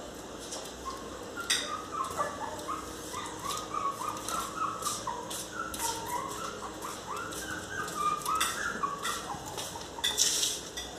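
A miniature pinscher and a puppy whining in short, high cries that rise and fall, one after another, begging to be let into the house. Now and then paws scratch at the glass door.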